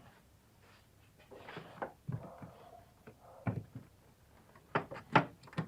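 Scattered metallic clunks and knocks of hand tools and parts being worked in a van's engine bay, the sharpest few coming in quick succession near the end.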